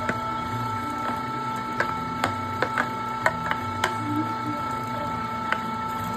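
Electric meat grinder running with a steady whine over a low hum as ground meat is pushed into a freezer bag. About ten sharp clicks are scattered through it.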